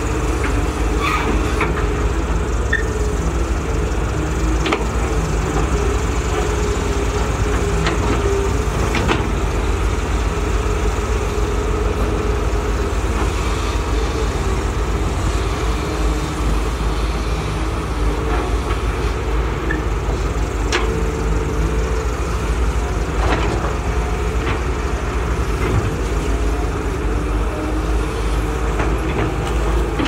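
Diesel engines of several Caterpillar hydraulic excavators running steadily while digging wet mud, with a few sharp knocks scattered through.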